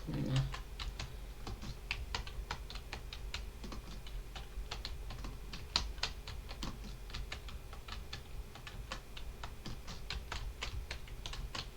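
Computer keyboard keys being typed on at a slow-to-moderate, uneven pace, a steady stream of individual key clicks.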